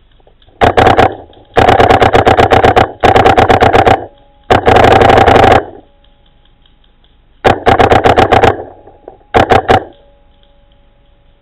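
Paintball marker firing in six rapid bursts of shots, about ten a second, with short pauses between them; the longest burst, about four to five and a half seconds in, is nearly continuous.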